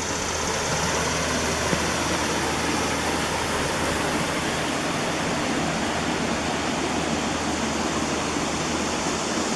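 Creek water rushing steadily, an even hiss that holds level throughout.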